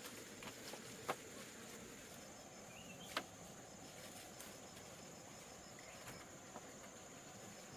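Insects chirring in a steady high tone, with a faint evenly pulsing chirp beneath it. Two sharp clicks stand out, about a second in and about three seconds in.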